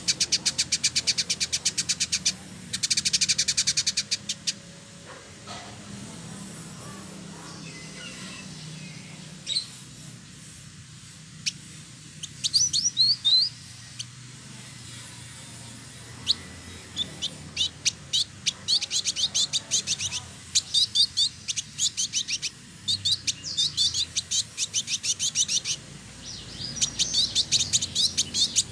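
Male village indigobird singing: bursts of very rapid, high chattering notes separated by pauses. The song falls mostly quiet for several seconds after the first few bursts, then returns in quick-fire phrases from a little past the middle onward.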